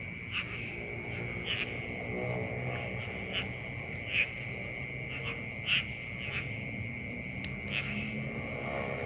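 Night chorus of crickets and frogs: a steady high insect drone with short, irregular chirping calls scattered through it.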